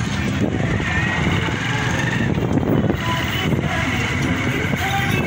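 Street traffic noise of motor engines, motorcycles and cars, at a steady level.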